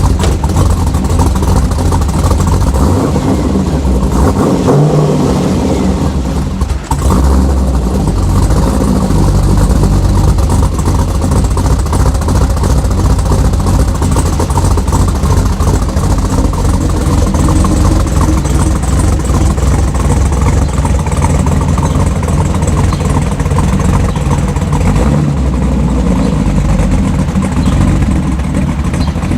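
Pontiac G8 GT's 6.0-litre L76 V8 engine running, steady with small rises in revs and a brief drop about seven seconds in.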